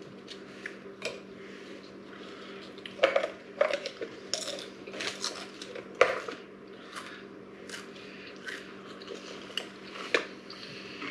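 A can of Pringles being opened and the crisps handled and eaten: a run of sharp clicks, crinkles and crunches, loudest about three and six seconds in.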